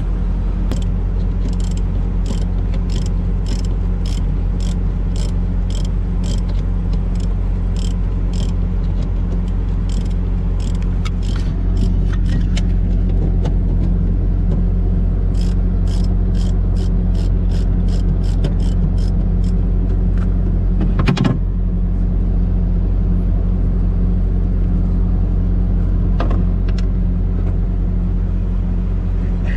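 Ratchet wrench clicking in two runs of about two clicks a second as the fan clutch solenoid's mounting bolt is worked loose, with one sharp knock a little past two-thirds through. A steady low engine drone underlies it throughout.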